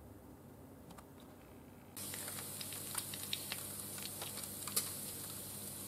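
Quiet room tone, then about two seconds in, air-fried bacon starts sizzling in the basket, its fat bubbling: a steady high hiss with scattered crackles and pops.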